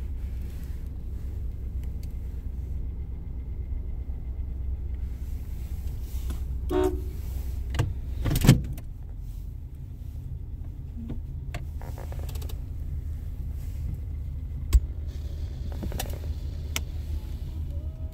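Inside the cabin of a 1978 Cadillac Sedan deVille driving slowly: the V8 and tyres make a steady low rumble. A few sharp clicks and knocks cut through it, the loudest about eight and a half seconds in and a single thump near fifteen seconds.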